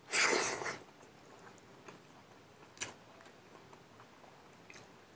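Eating by hand: a short wet suck as a fingerful of rice and mustard greens goes into the mouth, then quiet chewing with a few soft mouth clicks.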